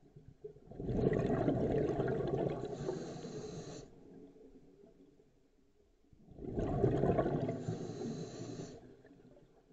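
Scuba diver breathing through a regulator underwater: two long exhalations, each a bubbling rush of about three seconds, with quiet pauses between.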